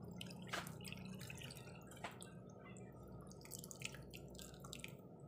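Coconut milk trickling and dripping from a cloth strainer into a frying pan of duck adobo, heard as faint, irregular drips over a low, steady hum.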